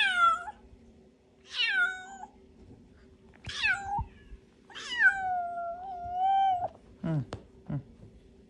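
Cat meowing four times, each meow falling in pitch, the fourth drawn out for about two seconds. Two short, lower calls follow near the end.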